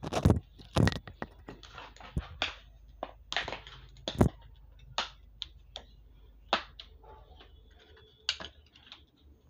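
Irregular sharp clicks and taps of small plastic parts being handled on a bench, the loudest in the first second and again about four seconds in. Near the end comes a click as a test-lead plug is pushed into the digital multimeter's input jack.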